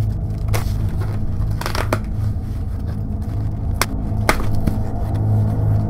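Cardboard shipping box being torn open by hand, a few short rips and crackles of the flaps and tape, over steady background music.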